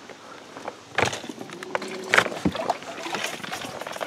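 Knocks and bumps in a small metal fishing boat: a sharp knock about a second in and two more around two seconds in.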